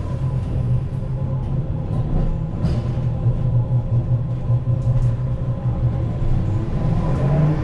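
Cabin sound of a 2006 New Flyer E40LFR electric trolleybus under way: a steady low hum and rumble from the drive and road, with a faint steady whine above it and a few light clicks.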